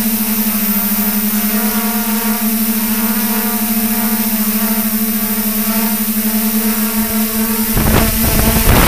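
Multirotor drone propellers humming at a steady pitch. About eight seconds in, a loud rush of wind buffets the microphone as the camera drone drops close to the ground.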